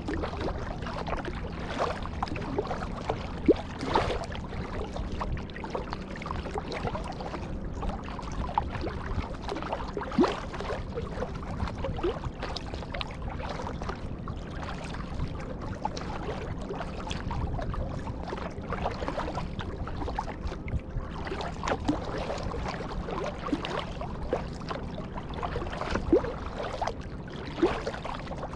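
Kayak paddling: the paddle dipping and pulling through the water, with splashes, drips and scattered light knocks over a steady low rumble.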